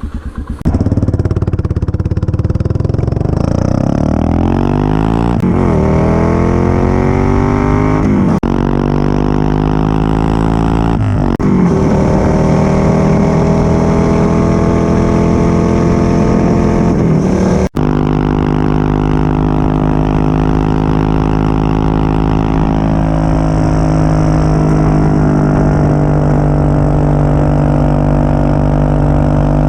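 CCM DS 644's big single-cylinder engine, heard from close behind the exhaust, accelerating hard under full throttle. The pitch climbs through each gear, with four upshifts in the first two thirds. It then runs at a steady, even pitch at constant speed.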